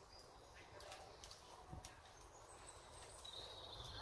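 Near silence: faint woodland ambience with a few soft clicks and a faint high bird call near the end.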